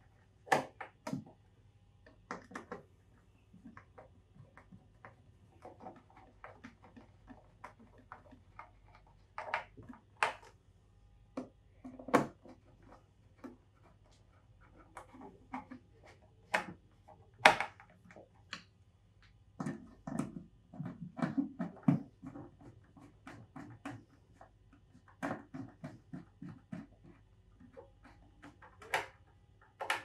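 Hand screwdriver tightening screws into the plastic control-panel housing of a Pentair IntelliFlo variable-speed pool pump: irregular clicks and taps of the tool and hands on the plastic, with a run of quicker strokes about two-thirds of the way in.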